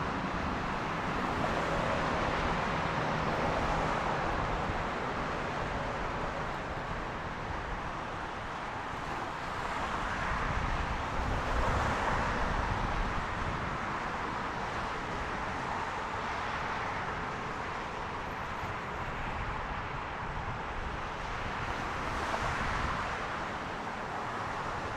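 Airbus A300-600 freighter's jet engines, a steady rushing noise that swells about ten seconds in and again near the end, with wind on the microphone.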